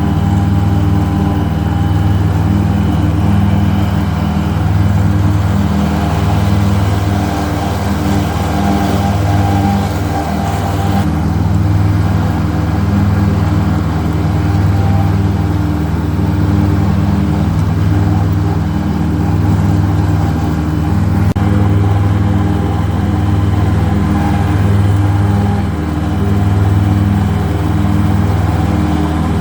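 Kubota GR2120 mower's three-cylinder diesel engine running steadily, with a low hum that swells and eases every second or two.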